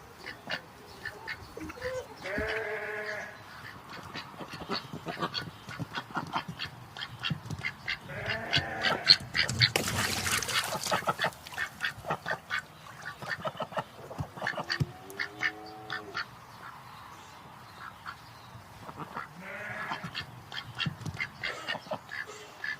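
Farm animals calling: rapid quacking-type calls all through, with four longer, drawn-out bleating calls spread across it.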